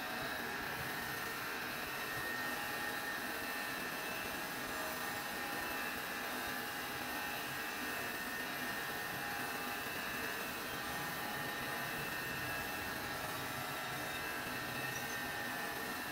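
Crankshaft grinding machine running steadily as it grinds a Massey Ferguson tractor crankshaft: an even hiss with a steady whine from the spinning grinding wheel and motors.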